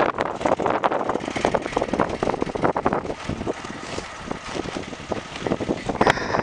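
Foton 254 tractor running with a dense, irregular clattering rattle. The rattle eases for a few seconds in the middle and comes back louder near the end.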